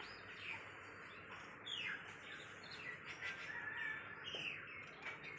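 Birds chirping: many short, high chirps over a steady background hiss.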